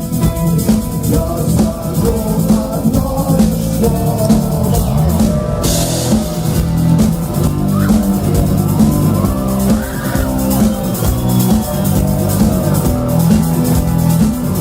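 Rock band playing an instrumental passage: drum kit, bass and electric guitar, with a cymbal crash about six seconds in.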